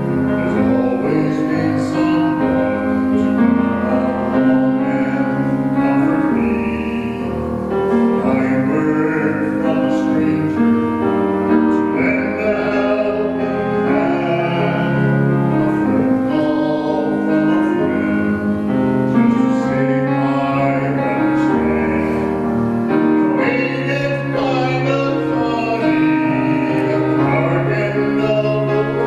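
Voices singing with piano accompaniment, in sustained, steadily held notes.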